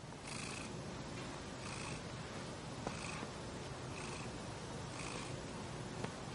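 Domestic cat purring steadily close up. The purr swells in a regular rhythm about once a second.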